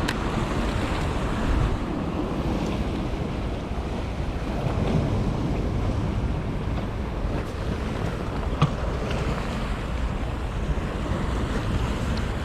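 Steady wind buffeting the microphone over the sound of the sea and waves, with one short knock about eight and a half seconds in.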